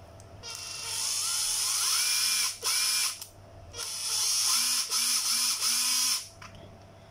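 Makita TD131 brushed cordless impact driver run free twice, each run about three seconds long. The motor whine rises in pitch as the trigger is squeezed and comes with a gear rattle. The seller feels this motor runs less smoothly and a little slower than it should.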